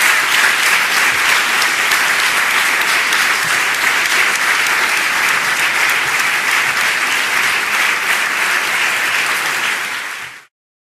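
Audience applauding steadily at the end of a lecture, the clapping stopping abruptly near the end.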